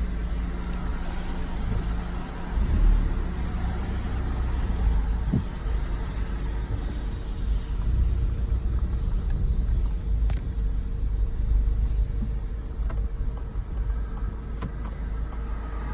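2018 Volkswagen GTI Mk7.5's turbocharged 2.0-litre EA888 four-cylinder engine, fitted with an open intake and turbo muffler delete, running steadily as heard from inside the cabin. A few faint clicks sound over it.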